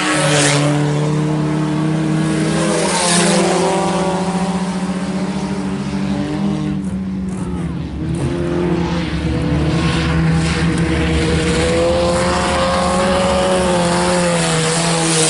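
Several IMCA Sport Compact race cars, four-cylinder compacts, running laps together, their engines droning at steady speed. A few cars pass close, briefly louder, near the start, about 3 seconds in and about 10 seconds in.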